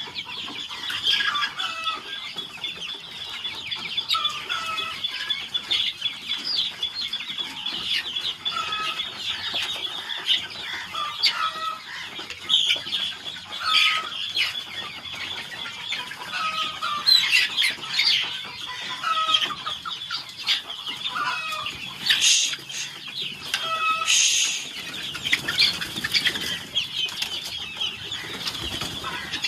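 A flock of Sonali chickens calling: many short rising clucks every second or so over a steady chorus of high chirps, with a few louder bursts of flapping or rustling.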